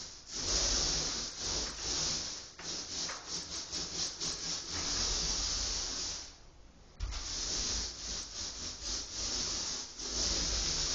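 Paint roller rubbing over a painted surface in repeated back-and-forth strokes, with a short pause a little past halfway.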